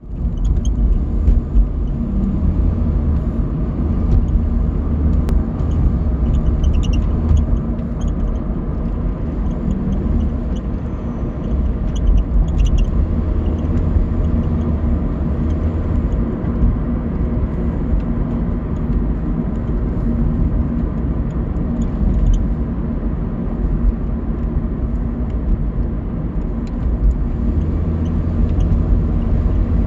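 2006 Honda Civic running with a steady low rumble, and short high squeaks now and then, a cluster of them about twelve seconds in. This is an intermittent squeak whose source the owner cannot locate.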